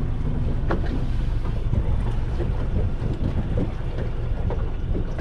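Brand-new Suzuki 140 hp four-stroke outboard running steadily at idle to low speed, with a few faint taps over the hum. This is the idling stage of the new engine's break-in.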